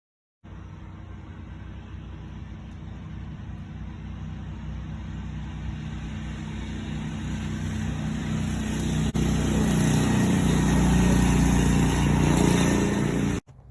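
Riding lawn mower's small engine running and getting steadily louder, with a brief break about nine seconds in and an abrupt cut-off near the end.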